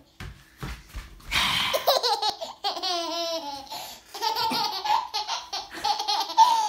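Baby laughing in a run of short bursts of about a second each, with brief pauses between.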